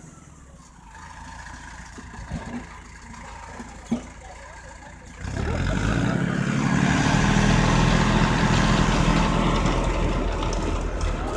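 A motor vehicle's engine, quiet at first with a couple of faint knocks, then running loud and steady from about five seconds in.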